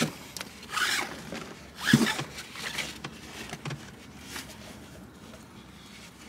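Thin tie-down strap webbing being pulled through its metal buckle and tightened, with two louder zip-like swishes about one and two seconds in and fainter rustling after.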